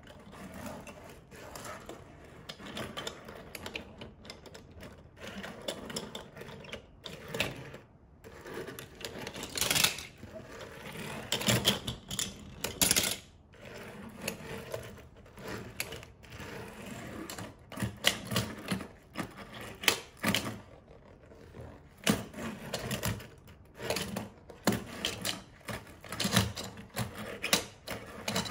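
Diecast toy cars handled and rolled on a wooden tabletop: small metal-and-plastic cars clicking and clattering against each other and the wood in an irregular run of taps, with a louder knock every so often.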